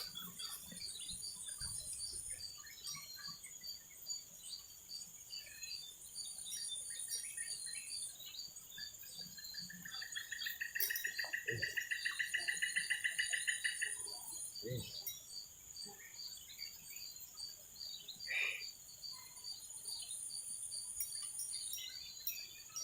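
Insect chorus: a steady high-pitched drone with rapid, regular chirps, and higher buzzes that come back every few seconds. A louder pulsing trill swells for about five seconds in the middle.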